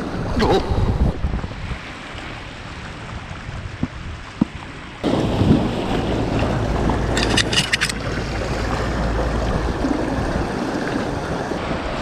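Wind buffeting the microphone over sea waves washing against shore rocks; the wind rumble grows louder about five seconds in. A quick run of clicks sounds a couple of seconds later.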